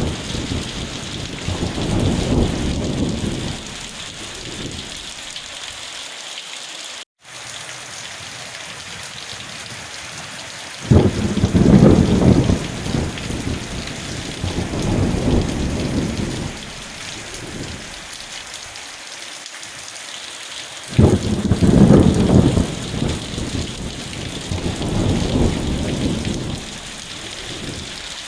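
Steady heavy rain with low thunder rolling in again and again. Each roll starts sharply, swells and fades over several seconds, with the rolls about ten seconds apart. The sound cuts out completely for a moment about seven seconds in.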